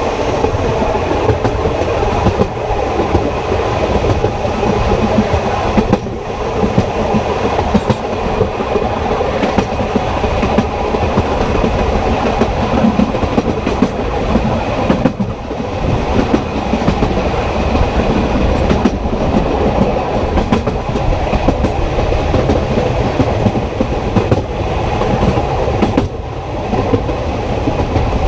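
The Sóller railway's narrow-gauge electric train running along the track, heard from the last carriage: a steady loud rumble of wheels on rail with frequent clicks, knocks and rattling of the carriage over the rail joints.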